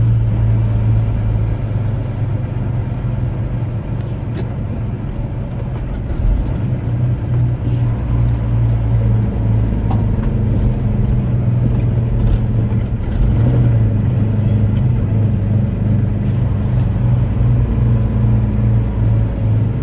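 Truck engine running with a steady low drone while the truck and trailer move slowly through an inspection station.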